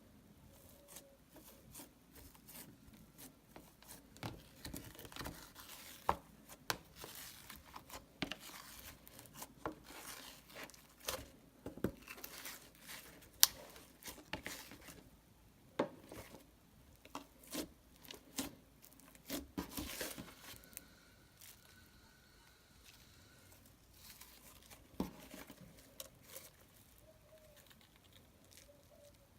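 Slime being pressed, poked and stretched by hand, making irregular sticky clicks and crackles. There is a quieter stretch about two-thirds of the way through.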